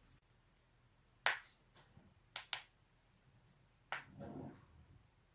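A person's joints cracking: several sharp pops, the loudest about a second in, a quick pair around two and a half seconds and another near four seconds, followed by a brief soft rustle.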